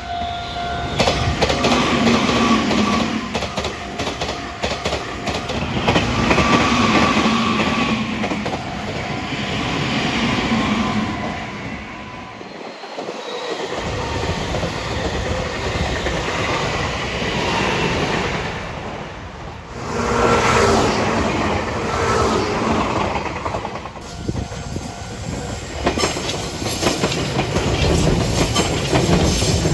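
Meitetsu electric train running on the line, wheels clacking over rail joints, with humming tones over the rolling noise. The sound breaks off abruptly about thirteen seconds in and again near twenty seconds, then picks up again.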